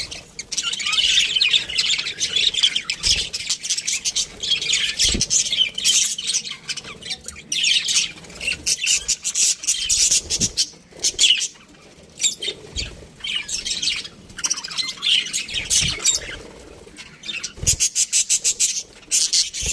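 Budgerigar chirping and chattering in quick, busy runs of high twittering, easing off briefly in the middle, with a few soft low thumps in between.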